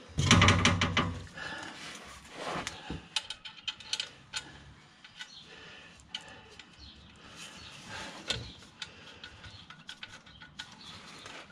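Hand-working noise as clutch pressure plate bolts are threaded in by hand: scattered light metallic clicks and scrapes of bolts and gloved fingers on the clutch cover. A louder rustling clatter comes in the first second.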